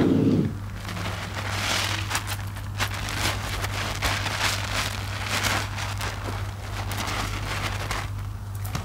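Foamy, wet IKEA mesh bath puffs squeezed and kneaded by hand in soapy water: squishing and crackling of lather, swelling with each squeeze about once a second, over a steady low hum. A short low thump at the very start is the loudest sound.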